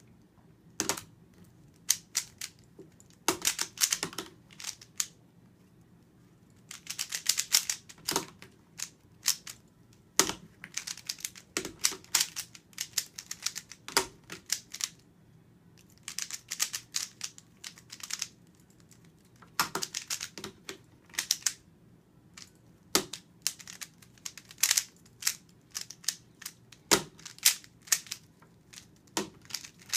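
A 3x3 Rubik's speedcube being turned one-handed: bursts of quick plastic clicks and clacks with short pauses between them.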